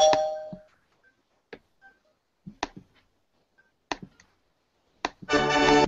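A two-tone digital chime, like a doorbell sound effect, rings out and dies away. Then come a few faint clicks about a second apart. Near the end a loud musical sound effect with a held chord starts.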